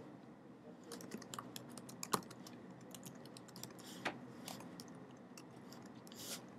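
Faint typing on a computer keyboard: a run of irregular keystroke clicks, with a couple of louder key strikes about two and four seconds in.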